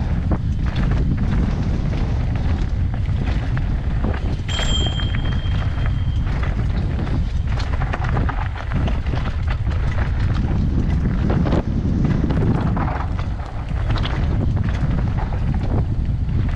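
Mountain bike descending a rocky, gravelly trail: steady wind rush on the microphone, with tyres crunching over loose rock and the bike rattling over bumps. About four and a half seconds in there is a knock and a short high squeal.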